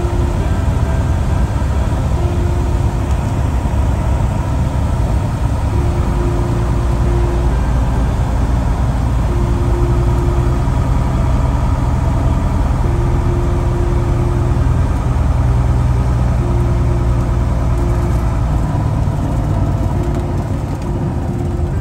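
Cessna 170B's engine and propeller heard from inside the cockpit on a night landing: a steady drone that drops a little near the end. A faint low tone sounds for about a second every three to four seconds.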